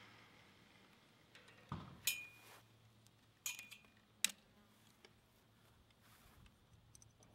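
A few faint, sharp metallic clinks of steel fence wire and a galvanized spring clip strainer being handled. They come about two seconds in and again around three and a half and four seconds in, some with a brief ring.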